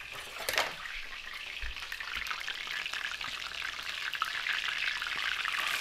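Chapli kababs shallow-frying in hot oil in a pan: a steady sizzle that grows louder, with a brief knock about half a second in.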